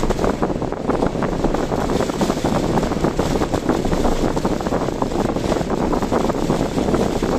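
Steady rushing of typhoon wind together with the road noise of a car driving, with no clear engine tone or separate events.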